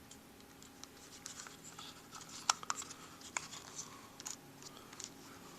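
Light clicks and scratching of a Traxxas T-Maxx transmission's case halves and gears being worked together by hand, with a few sharper clicks about two and a half, three and a half and four and a quarter seconds in.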